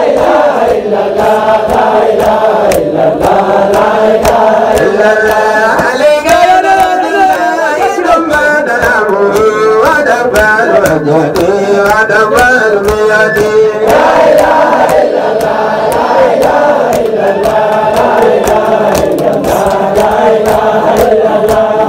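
A crowd of men chanting Sufi dhikr together in a rhythmic, melodic chant, with a steady beat of sharp strokes under the voices. In the middle a single voice rises and winds above the group.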